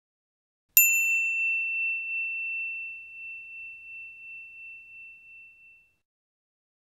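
A single high bell-like ding, struck about a second in and ringing down over about five seconds with a slight wavering in its level.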